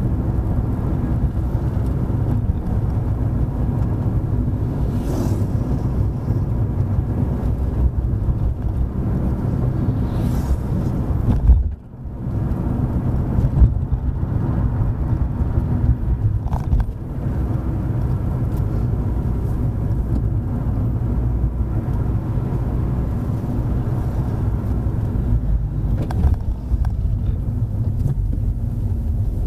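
A car being driven: a steady low engine drone with road rumble. The sound drops out briefly about twelve seconds in.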